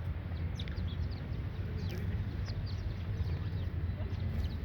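A flock of small birds chirping, many short downward-sliding calls overlapping, over a steady low rumble.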